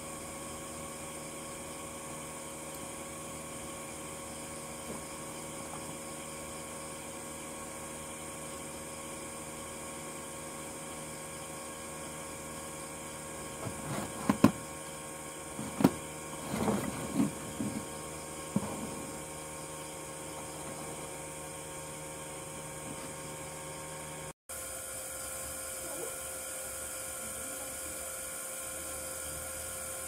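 A steady electrical hum and hiss with a thin high whine. About halfway through come a few sharp clicks and short knocks as the gaming mouse is handled on the bench.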